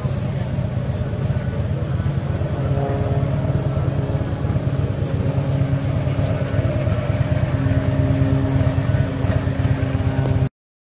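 Harley-Davidson V-twin motorcycle engine idling steadily close by, a low even pulsing, until the sound cuts off suddenly near the end.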